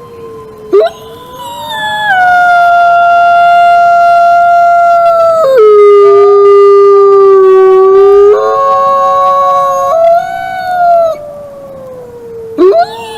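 Wolves howling in chorus: long, drawn-out howls from at least two animals overlapping, each gliding slowly in pitch. One voice drops to a low held note around the middle before rising again.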